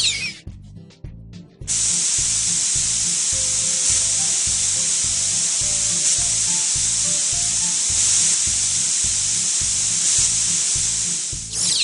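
A steady, loud hiss sound effect starts about two seconds in and holds until a quick whoosh near the end, over background music with a steady beat.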